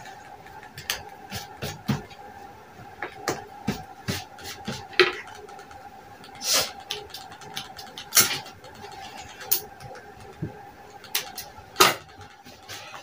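Irregular clicks and short rustles of fabric and tools being handled on a tailoring table, over a steady faint hum.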